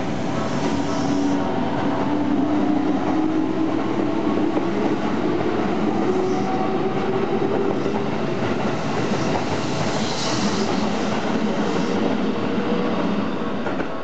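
Keikyu 1500 series train running across a level crossing, its wheels clattering over the rails, with a motor whine that rises and then falls in pitch. The crossing's warning bell rings steadily throughout.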